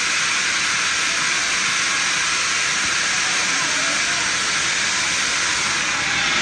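Steady, even hiss of air from a drop-tower amusement ride while its car is held at the top of the tower.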